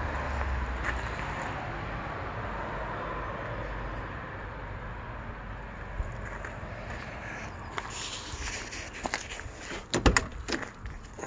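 VW Golf GT's four-cylinder petrol engine idling steadily with the bonnet open. About ten seconds in, a few sharp clicks and knocks from the car's door being handled.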